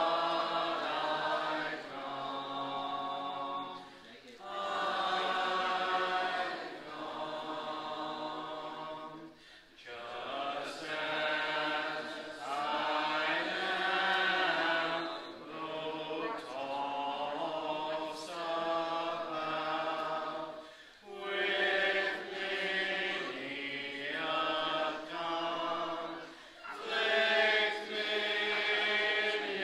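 Church congregation singing a hymn a cappella, many voices in parts. The phrases are held, with short breaks for breath every several seconds.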